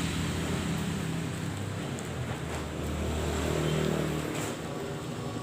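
Road traffic noise: vehicle engines running past, with a low hum that swells and fades about three to four seconds in.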